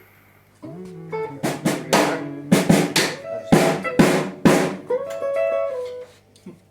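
Guitar playing a short bluesy phrase with bent notes, punctuated by drum kit hits, starting about half a second in and ending on a held note about six seconds in.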